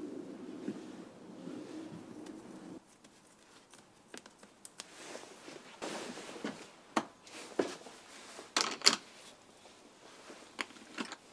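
Light handling noises in a workshop: scattered clicks, taps and rustles of small objects being picked up and set down. They follow a steady low noise that cuts off abruptly about three seconds in.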